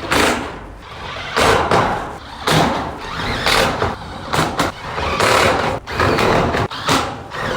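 Thin steel shed roof sheets being handled and overlapped, the sheet metal rattling and flexing in a run of loud clattering bursts about once a second.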